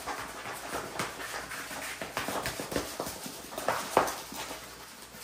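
Rustling and crinkling of the plastic and paper wrapping on a rolled diamond-painting canvas as it is handled and unrolled, in irregular crackles, the loudest about four seconds in.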